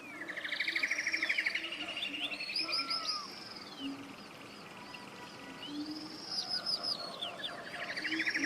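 Forest birdsong: songbirds singing phrases of a fast trill and a run of rising-and-falling whistled notes, twice, the second phrase starting about halfway through, with fainter bird calls underneath.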